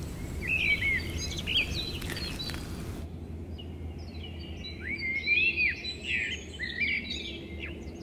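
Small birds chirping in short, quickly rising-and-falling calls, in two spells a few seconds apart, over a low steady outdoor rumble.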